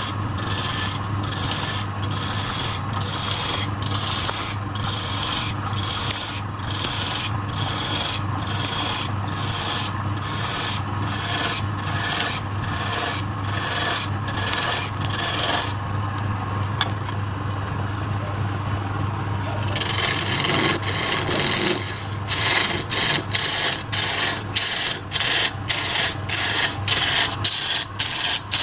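Wood lathe running with a steady low hum while a hand-held turning chisel scrapes and cuts into the spinning wooden cylinder, the cutting noise pulsing about twice a second. The cutting stops for a few seconds past the middle, then resumes in quicker, uneven strokes.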